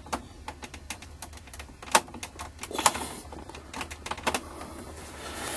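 Irregular sharp clicks and knocks of hands handling a car's dash gauge pod, the pulled-out gauge and its plastic wiring-harness plug, with two louder knocks in the middle.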